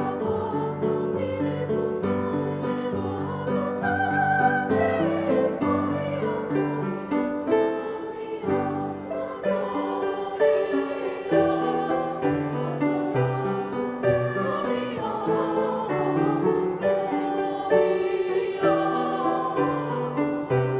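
High school choir singing with piano accompaniment, the voices holding sustained notes that change from chord to chord.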